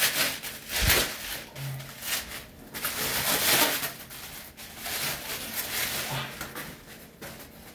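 Plastic packaging rustling and crinkling in uneven bursts as a lightsaber is unwrapped by hand.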